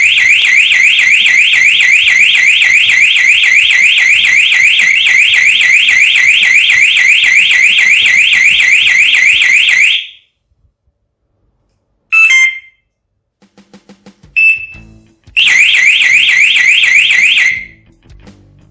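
DEO Akira motorcycle alarm siren sounding its triggered alarm tone, driven by the alarm unit's audio-signal output rather than straight 12 V. The tone is a fast, loud, repeating upward sweep, about four a second, that cuts off about ten seconds in. After a pause come a short chirp, a short beep, and another two-second burst of the sweeping tone.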